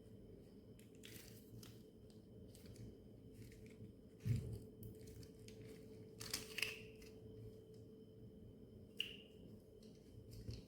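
Small parts of a toy bulldozer being handled: scattered light clicks and taps, a dull thump about four seconds in, and a few sharper clicks with a brief metallic ring later on.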